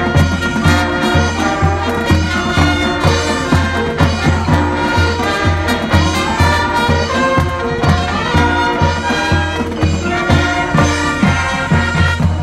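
Marching band brass playing its show music over a steady beat of low drum strokes.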